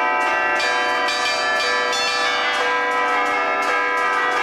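Twelve tower bells played from a wooden hand keyboard in the Bergamasque allegrezza style: the bells are struck in rapid succession, several strokes a second, in a lively festive tune. The notes ring on and overlap one another.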